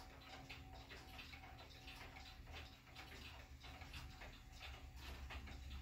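Several pendulum clocks, grandfather clocks among them, ticking faintly, their ticks overlapping in an uneven run of about two a second.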